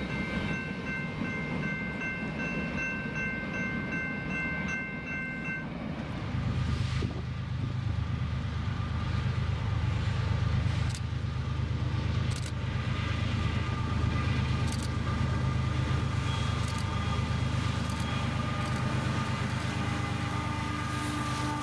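Freight train of covered hopper cars rolling past, with steady high tones over the wheel noise. About six seconds in this gives way to BNSF diesel locomotives approaching and passing at the head of a freight train: a strong steady low engine rumble with occasional sharp clicks from the wheels.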